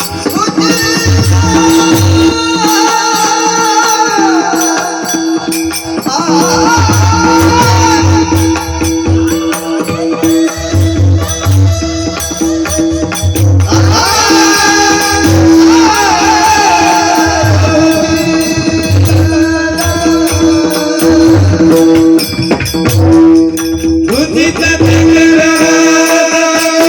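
A male voice singing a gliding Indian vocal line over a steady drone, accompanied by pakhawaj drum strokes and jingling hand cymbals. The singing pauses briefly near 14 s and again near 24 s.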